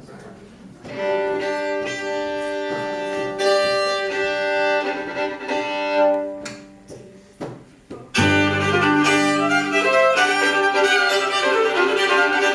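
Fiddles sound long held bowed chords for several seconds. About eight seconds in, the band starts a fiddle tune, with low bass notes under a busy fiddle melody.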